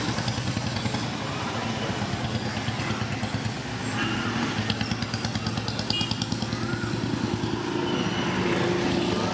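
Motorcycle and scooter engines running as they ride past close by, over steady road traffic.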